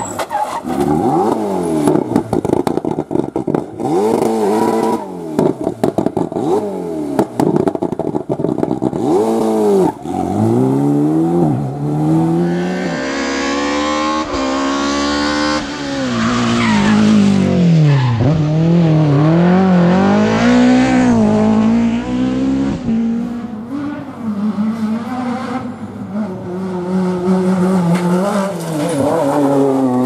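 Rally cars driven flat out on tarmac stages, one clip after another, their engines revving hard and dropping back through quick gear changes. The loudest stretch is about halfway through, with a car revving up and down close by.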